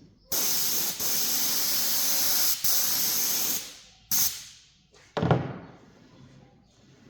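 A spray hissing in a long, steady burst of about three seconds, briefly interrupted twice, then one short burst. A moment later comes a knock followed by a fading hiss.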